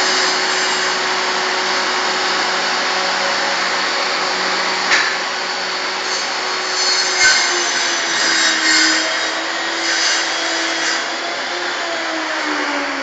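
Portable table saw running, cutting bamboo flooring: a steady motor whine whose pitch drops and wavers in the second half. A couple of sharp knocks come about five and seven seconds in.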